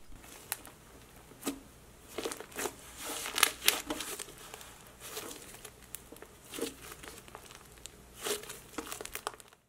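Hands squeezing and folding an overactivated fluffy slime that is too rubbery to stretch, giving irregular soft crackles and sticky pops.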